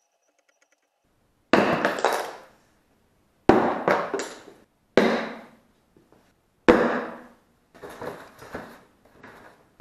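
Small hand-forged Damascus steel tomahawk thrown and hitting a target. There are four loud, sharp impacts about two seconds apart, each dying away over about a second, then three softer ones near the end.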